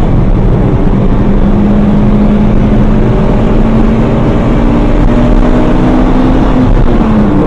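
Car engine and road noise heard from inside the cabin while driving. The engine note climbs slowly as the car pulls steadily, then drops near the end.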